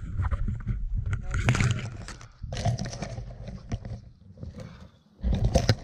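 Hiking boots squelching and sucking through deep mud, a few irregular heavy steps, the loudest near the end.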